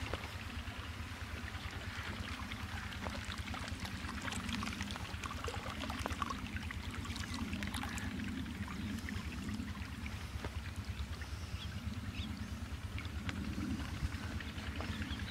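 Irrigation water flowing fast along an earthen field channel, a steady splashing wash with small gurgles and clicks, over a low rumble.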